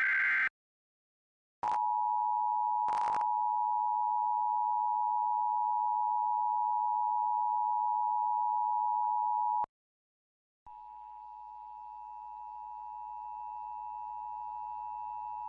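Emergency Alert System tones: the end of a warbling SAME digital header burst, a short gap, then the steady two-tone EAS attention signal (853 and 960 Hz) held for about eight seconds, with a brief burst of noise near its start. After a second of silence, a fainter, humming copy of the attention tone comes in and slowly grows louder.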